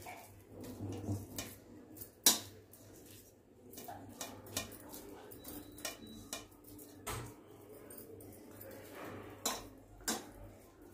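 Hands turning and pressing spice-marinated fish pieces in a stainless steel bowl, with soft handling noise and scattered clinks and knocks against the steel. The sharpest clink comes about two seconds in, and two more come near the end.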